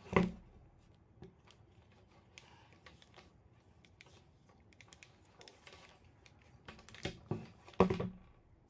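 Handling noise of an old corded angle grinder on a wooden tabletop: a sharp knock right at the start, soft clicks and cord rustling, then a cluster of louder knocks near the end as the tool is set down.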